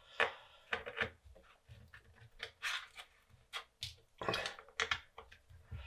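Small precision screwdriver working on the screws of a plastic USB-C laptop dock's casing: irregular clicks, taps and short scrapes of metal on plastic.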